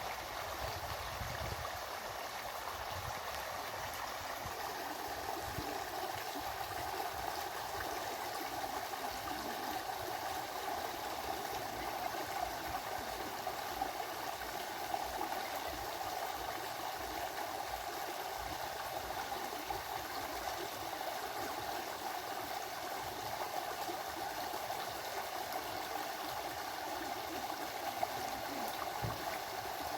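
A forest stream flowing, a steady rush and gurgle of running water.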